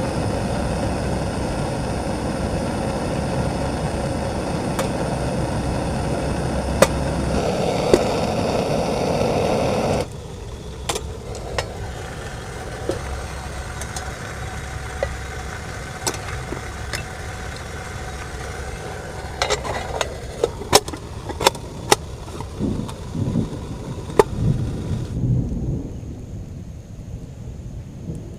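Heavy rain falling steadily on a tent, cutting off abruptly about ten seconds in; then lighter rain with scattered sharp taps and a few dull low thumps, going duller near the end.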